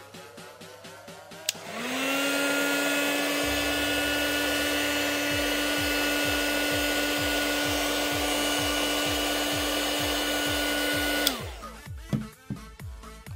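Handheld hot-air blower switched on about two seconds in, spinning up to a steady hum with a rush of air, then switched off near the end and winding down. It is heating the glued back glass of a phone to soften the adhesive. Background music with a steady beat plays throughout.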